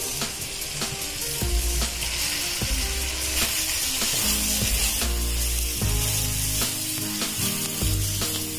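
Background music with a steady beat and bass notes, over a steady high hiss.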